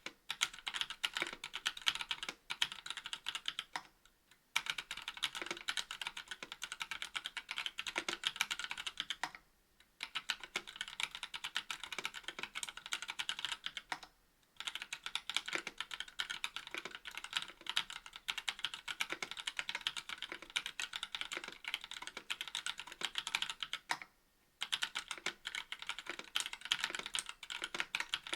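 Fast, continuous typing on a KBD67 V2 MKII mechanical keyboard with stock NovelKeys Cream linear switches, a brass plate and GMK keycaps: a rapid stream of keystroke clacks, broken by four brief pauses.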